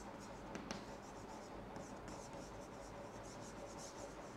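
Chalk scratching on a chalkboard as words are written, in faint clusters of short strokes.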